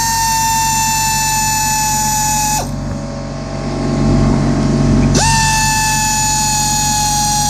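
Electric power tool motor whining at a steady high pitch that sags slowly as it runs under load; it stops about two and a half seconds in and spins up again a couple of seconds later.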